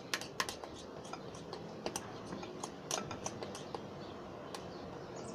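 Homemade glue-and-detergent slime being mixed and worked, giving irregular sticky clicks and small pops, a few a second, over a soft background. The mixture is still only half set and not yet holding together.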